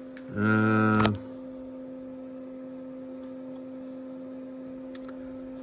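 Steady electrical hum, two even tones about an octave apart, from the powered-up test bench. About half a second in, a short loud buzz with many overtones lasts under a second.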